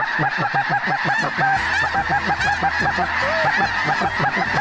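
A large flock of snow geese calling as it circles and drops in, a dense chorus of many overlapping calls with no let-up.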